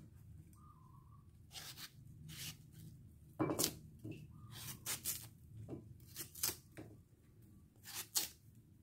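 Kitchen knife slicing through the firm flesh of a peeled unripe mango: about a dozen short, crisp cutting strokes, several in quick pairs.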